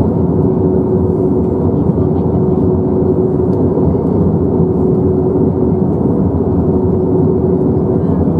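Steady cabin noise of an Airbus A321-231 in cruise, heard from a window seat over the wing: the rush of airflow and the drone of its IAE V2500 engines, with one held hum tone running through it.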